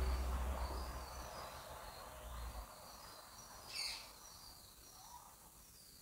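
Faint background ambience of short, high chirping that repeats throughout, with one louder, brief call falling in pitch about four seconds in. A low rumble fades out before three seconds in.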